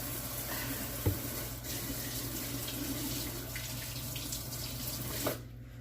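Kitchen sink faucet running, water splashing steadily as something is rinsed under it, with a single sharp knock about a second in. The water shuts off near the end.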